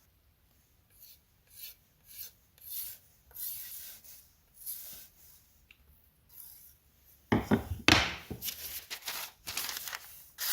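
Kitchen knife edge drawn along a strop in repeated light strokes, a quick rubbing swish with each pass to lightly refine an edge fresh off a 500-grit stone. The strokes are faint at first and turn louder and quicker about seven seconds in.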